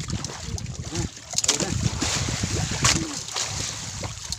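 Sea water splashing and lapping against the hull of a small outrigger fishing boat, with a couple of sharper splashes about a second and a half and three seconds in.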